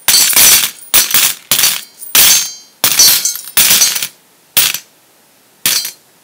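Coin-clink sound effects: about a dozen sharp metallic chinks, each with a short ring, coming quickly one after another, then two more spaced about a second apart near the end.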